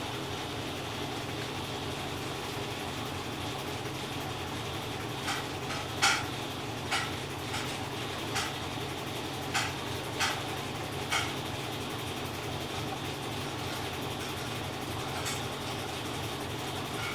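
GE EcoPerformance 15 kg washing machine running with a steady hum. About eight sharp clicks or knocks come at uneven intervals between about five and eleven seconds in.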